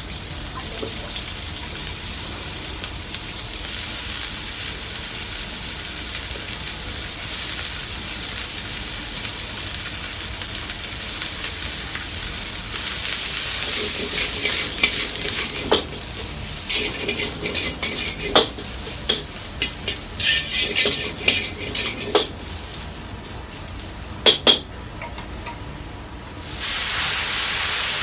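Shredded cabbage sizzling in a wok over a high gas flame. From about halfway through, a metal ladle scrapes and knocks against the wok. Near the end a sudden, louder hiss comes as a burst of steam rises from the wok.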